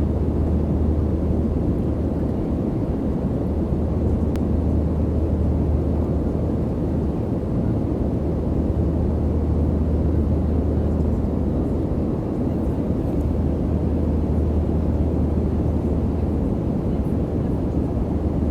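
Airplane cabin noise: the steady drone of the engines and rushing air heard from inside the passenger cabin. A deep, even hum with a dull rushing noise over it, unchanging throughout.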